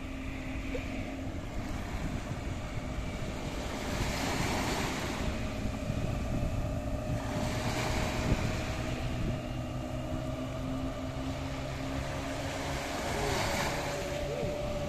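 Yamaha 40 hp outboard motor on a speedboat running at speed, heard from a distance as a steady hum that climbs slightly in pitch. Small waves wash in at the shore every few seconds over it.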